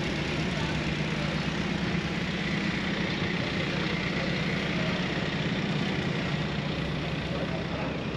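Car engine idling steadily, an even low hum.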